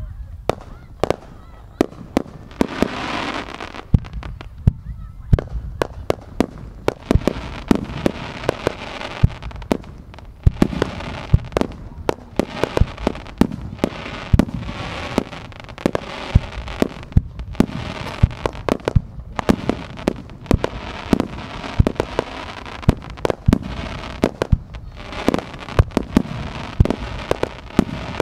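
Aerial fireworks launching and bursting in a rapid barrage: a continuous run of sharp bangs, several a second, with a steady rumble between them.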